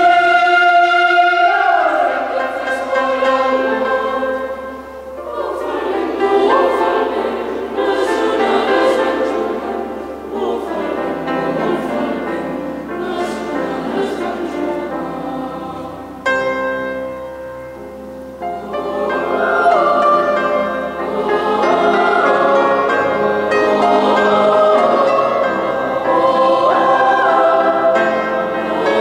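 Boys' choir singing a cappella-style choral music in parts, with a softer passage about two-thirds of the way through before the voices swell again.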